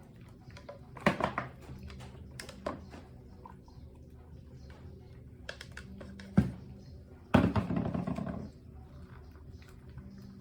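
A few sharp knocks and thuds of objects being handled in a small room, with a louder, longer clatter about seven seconds in, over a steady low hum.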